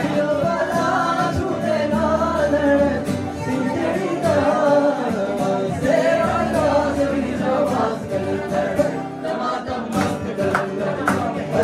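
Acoustic guitar strummed to a song, with singing voices over it.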